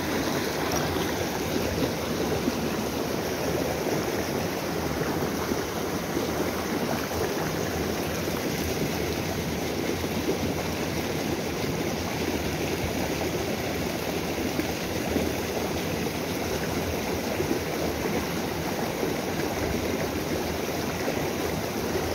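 Steady rushing of a small stream flowing over rocks, an even wash of water noise with no breaks.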